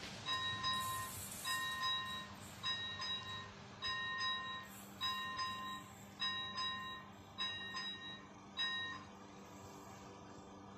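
Level-crossing warning bell, a ZV-01 electronic bell, ringing in double dings about every 1.2 seconds. It stops about nine seconds in as the crossing deactivates after the train has passed.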